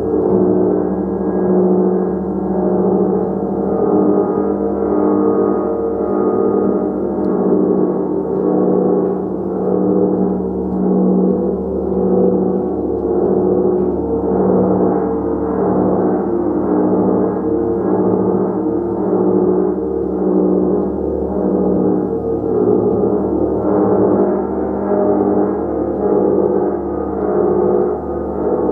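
A large gong played continuously with soft repeated strokes, building a dense, sustained wash of overlapping low tones that swells and ebbs gently without a distinct single strike standing out.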